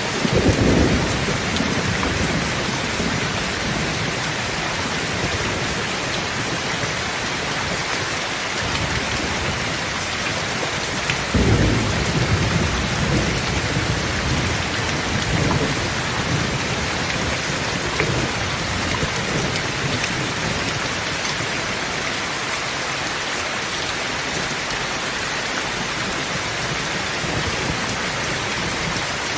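Thunderstorm: steady rain falling, with low rolls of thunder rumbling at the start and most strongly about eleven seconds in, then fading into the rain.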